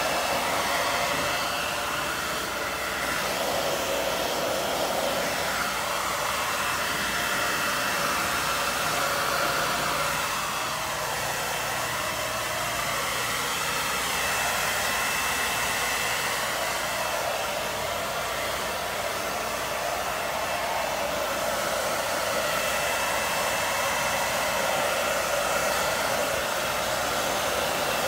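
Handheld hair dryer blowing steadily while drying a small dog's wet fur.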